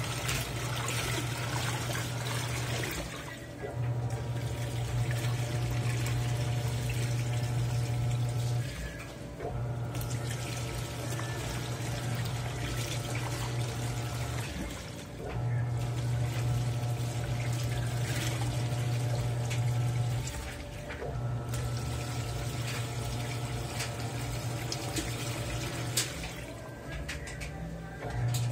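Panasonic NA-F160B5 top-load washing machine agitating a full load of T-shirts: a low motor hum with water sloshing, running in stretches of about five to six seconds, each broken by a short pause.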